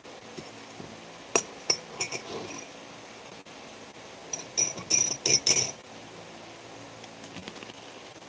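Hard dishware clinking with a short bright ring: a few separate clinks about a second and a half in, then a quick run of clinks around five seconds in.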